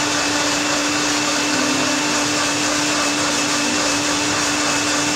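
Electric countertop blender running steadily at one speed, its motor holding a constant pitch as it mixes a thick smoothie.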